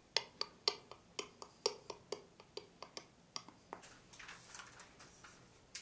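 Footsteps on a wooden floor strewn with plaster and debris: a quick, even run of sharp clicks and crunches, about four a second, giving way to softer scuffing after about four seconds.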